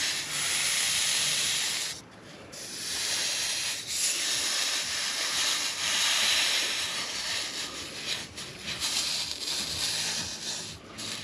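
Wet rag pressed onto a freshly soldered copper pipe joint, hissing as the water on the hot metal turns to steam, which cools the joint. The hiss dips briefly about two seconds in and turns rougher near the end as the rag wipes over the fitting.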